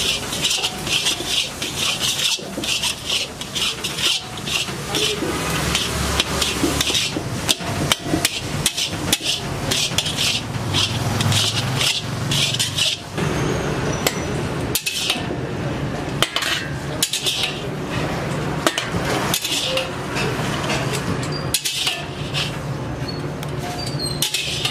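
Flat metal spatula scraping and knocking against an iron kadai as a thick paste is stirred and turned, with rapid, irregular clinks and scrapes. A steady low hum runs underneath.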